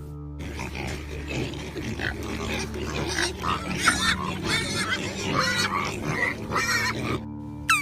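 Several animals calling together: many short, irregular calls overlapping over a noisy background, stopping about seven seconds in.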